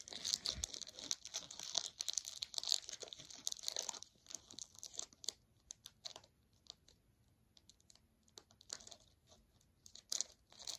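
A foil Pokémon card booster pack wrapper being torn open and crinkled: a dense crackle for the first few seconds, then scattered crinkles that die away and return briefly near the end.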